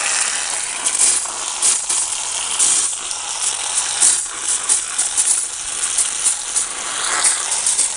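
Thin stream of water from a garden hose spattering onto the plastic floor of an empty children's paddling pool: a steady, loud hiss full of small crackles as the pool begins to fill.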